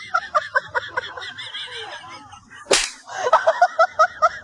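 Quick runs of high-pitched, chattering laugh-like pulses, about six a second, from a dubbed comic laughter sound effect. A single sharp whip-like crack comes about two and a half seconds in.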